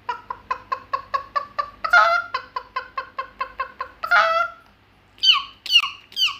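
A girl's voice imitating a chicken: rapid clucks, about five a second, broken by two louder squawks, then three short peeps falling in pitch near the end, like chicks.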